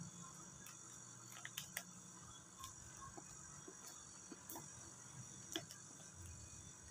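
Very quiet handwork: faint scattered clicks and light rubbing as a felt-edged plastic squeegee is worked over clear film on a scooter's speedometer cover.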